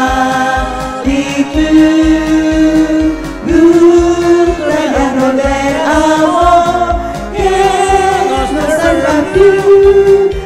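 Karaoke backing track of a 1960s Italian pop song with a regular beat, and voices singing along into microphones in long held notes.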